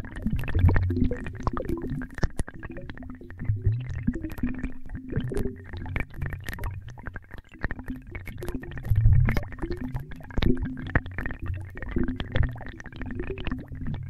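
Abstract watery bubbling made on an analogue Eurorack modular synthesizer: low bubbling swells that come and go every second or two, scattered with quick pops and clicks over a faint steady tone.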